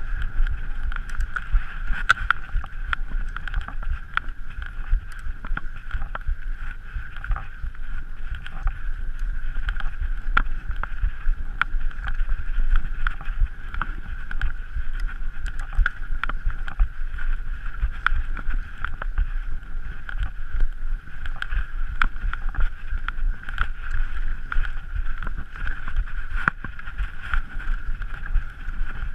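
Mountain bike descending a rough enduro trail at race speed: a steady rush of wind on the microphone and tyres on dirt with a low rumble, broken by frequent sharp clicks and rattles from the bike over rough ground.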